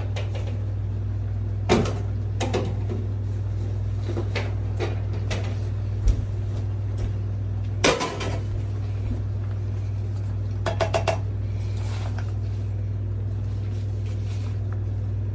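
Kitchen clatter: half a dozen scattered knocks and bangs of cupboards and utensils being handled, over a steady low hum.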